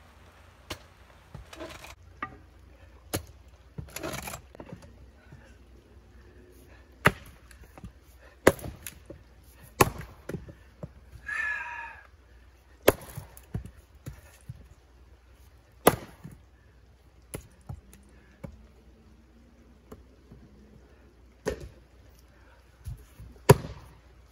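Small axe splitting firewood rounds: about fifteen sharp chops into wood at irregular intervals, each a second or a few seconds apart.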